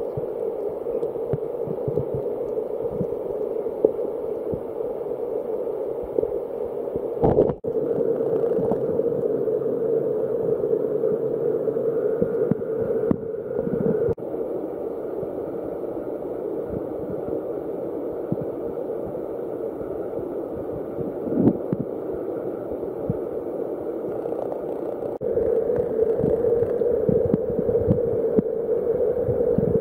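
Highland stream water rushing over rocks, recorded with the camera underwater: a dull, muffled, steady rush. It changes abruptly in level about 7, 14 and 25 seconds in, louder after the last change.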